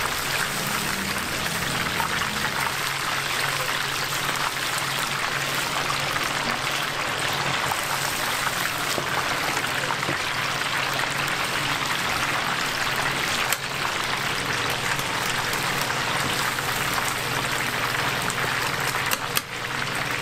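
Battered chicken pieces deep-frying in a wok of hot oil: a steady, dense sizzle and bubbling, with a single sharp click about two-thirds of the way through.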